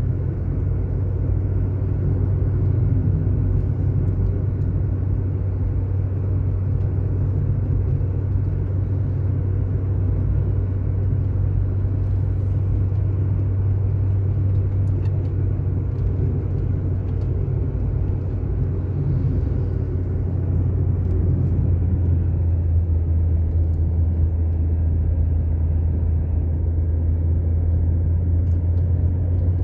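Car driving along an asphalt road: a steady, low rumble of engine and tyre noise that holds even throughout.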